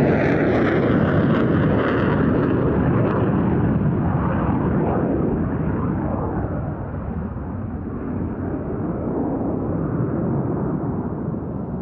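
English Electric Canberra PR9's twin Rolls-Royce Avon turbojets, heard as the jet climbs away after a low pass. A falling whine trails off in the first second, then a steady jet noise slowly fades.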